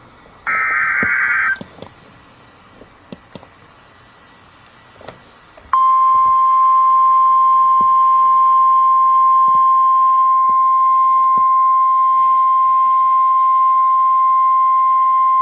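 NOAA Weather Radio alert for a tornado warning. It opens with a one-second burst of the SAME digital header's warbling data screech, then a few faint clicks of static. About six seconds in, the steady single-pitch Warning Alarm Tone comes on and holds loud and unchanged for about ten seconds.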